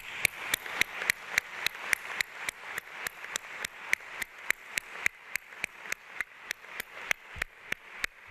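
Applause: one person clapping steadily close to the microphone, about four even claps a second, over softer clapping from an audience.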